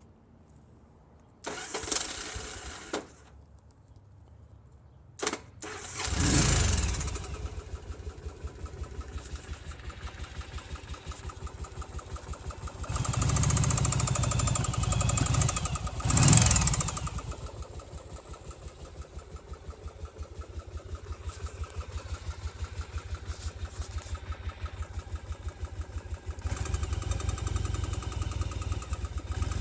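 Yamaha Virago 750's air-cooled V-twin cranked on the electric starter, catching on the second try about six seconds in. It is revved, then idles with even pulsing beats and a knock in the engine.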